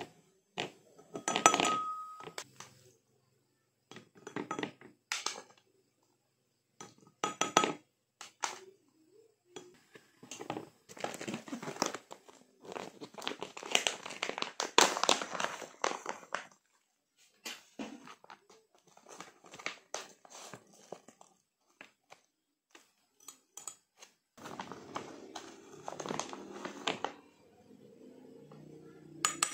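Clear plastic zip-lock pouch crinkling as it is handled and opened, with a spoon scooping granulated brown sugar and scraping. A spoon gives a ringing clink against a glass about a second and a half in. A low steady hum begins near the end.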